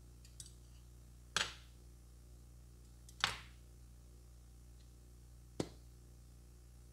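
Clinks and taps of small metal tools and glass jars handled on a tabletop: a faint tick, then two louder clinks with a short ring about a second and a half and three seconds in, and a sharp tap later, over a low steady electrical hum.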